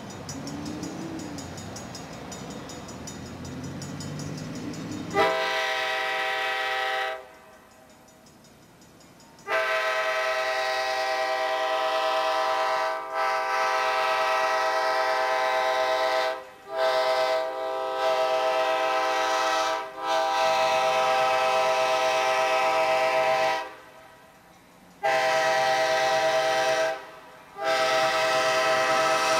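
An Amtrak F40PH diesel locomotive's air horn sounds a series of blasts for the grade crossing as the train approaches: two long blasts, shorter ones, another long blast, then a new series starting near the end. For the first five seconds, before the horn, the approaching train rumbles.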